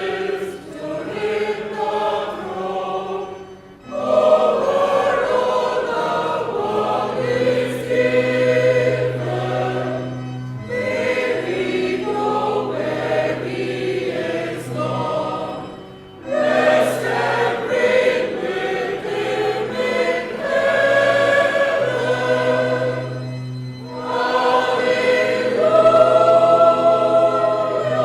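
Church choir singing a hymn in phrases over a steady held low note, each phrase ending and the next beginning four times across the stretch.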